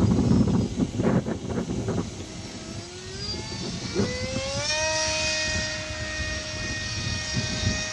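Electric motor and propeller of a homemade depron RC airplane: after a couple of seconds of gusty rumbling, the motor's whine rises in pitch as the throttle is opened, then holds a steady high pitch.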